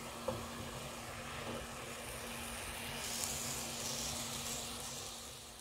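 Chicken and tomato mixture simmering in a covered pan on low heat: a faint steady hiss under the glass lid, growing a little brighter about three seconds in. A light clink comes just after the start as the lid is set on.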